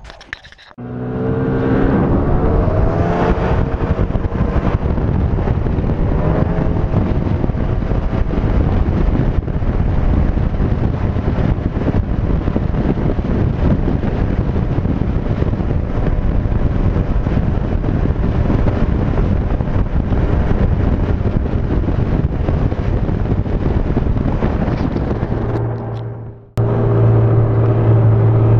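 Snowmobile engine pulling away, its pitch rising over the first few seconds as it speeds up, then running steadily at speed while towing a loaded sled over snow. Near the end the sound drops out briefly and comes back as a steady engine hum.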